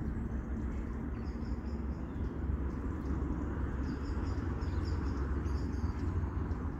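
Steady low outdoor background rumble with faint, high bird chirps scattered through it.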